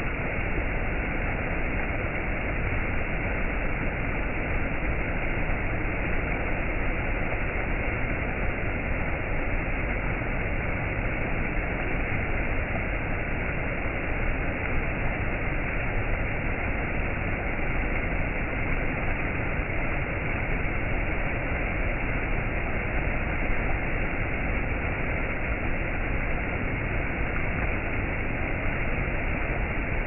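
Shallow stream running over low rock ledges in small cascades: a steady, even rush and splash of water.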